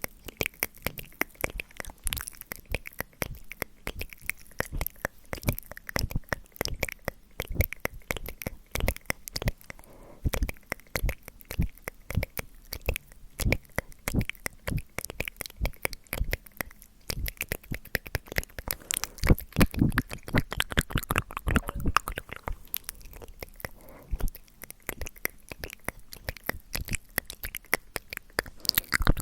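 ASMR mouth sounds made close to the microphone: rapid wet clicks, tongue clicks and lip smacks in a dense, uneven stream, getting louder for a few seconds past the middle.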